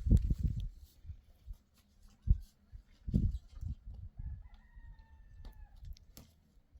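A rooster crows once, a drawn-out call held for about a second and a half around the middle, among several loud low thumps and knocks.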